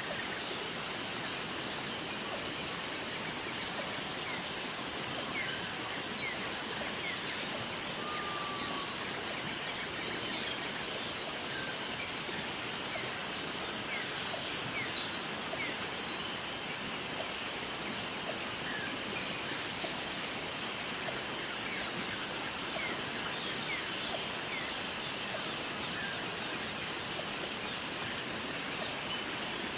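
Jungle waterfall ambience: a steady rush of falling water under a high insect buzz that comes and goes in two-second spells about every five to six seconds, with scattered short bird chirps.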